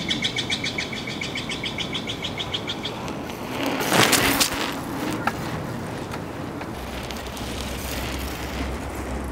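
Rapid, even chirping, about five chirps a second, for the first three seconds, then a vehicle passing with a rush of noise that swells and fades about four seconds in. A low hum comes in later.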